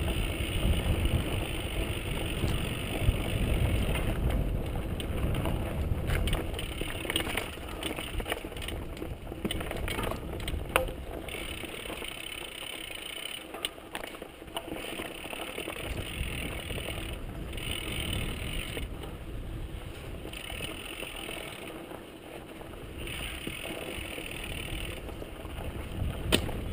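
Mountain bike descending a dirt singletrack: the rear hub's freewheel ratchet buzzes in stretches while coasting, cutting in and out as the rider pedals, over tyre and wind rumble. Sharp knocks and rattles come as the bike hits bumps, mostly in the first half, and the rumble is loudest in the first few seconds.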